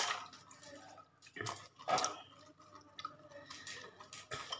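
Dishes being washed by hand at a kitchen sink: a few light, scattered knocks and clinks of crockery, with water dripping.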